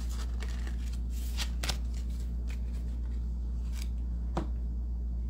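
A deck of oracle cards handled on a tabletop: gathered, tapped square and set down, giving a few short sharp taps and card slides. A steady low hum runs underneath.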